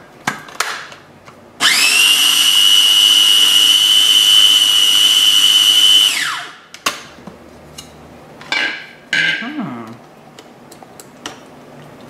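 Small electric food processor running, blending thick tahini sauce: a loud steady high whine for about four and a half seconds that winds down when it is switched off. A few clicks come first as the lid is handled, and some light knocks follow.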